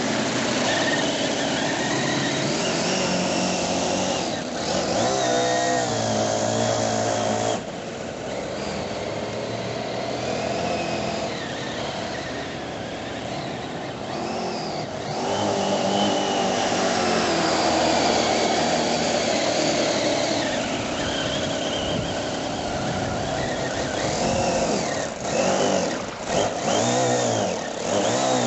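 Conley 4 hp single-overhead-cam V8 engine of a large R/C model speedboat running at speed. Its pitch rises and falls as the throttle changes and the boat passes, and it is quieter for a stretch from about 8 to 15 seconds.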